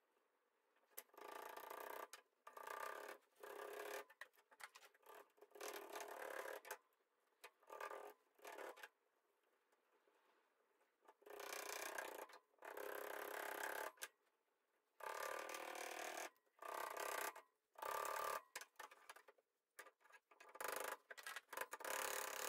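Light hammer taps on a copper wire winding around the base of wooden tongs, pounding the winding down tight. The taps come in short runs with pauses between them, and one longer pause near the middle.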